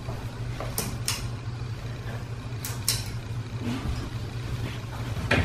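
A steady low hum, with about five short sharp clicks and taps scattered through it, the loudest near the end.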